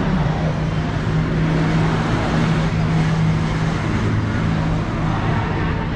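Road traffic on a busy multi-lane city road: cars passing with tyre and engine noise, under a steady low hum.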